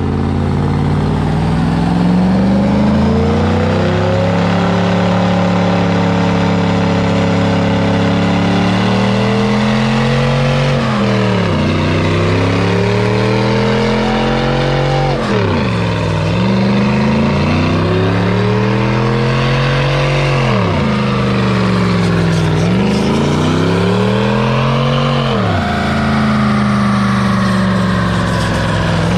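Pickup truck engine held at high revs during a burnout, the rear tyres spinning in smoke. Its pitch sags, then dips sharply and climbs straight back four times, about every five seconds.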